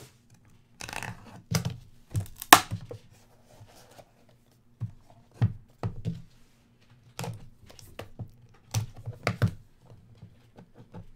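Hands opening a cardboard trading-card hobby box: the seal tearing, then the inner box sliding out, in a string of short scrapes and knocks of cardboard, the loudest about two and a half seconds in.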